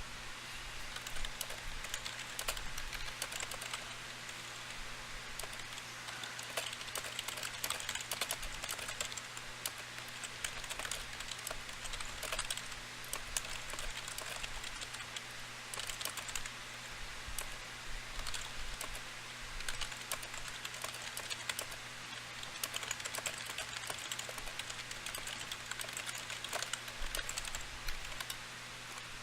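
Typing on a computer keyboard: runs of rapid key clicks broken by short pauses, over a steady low electrical hum.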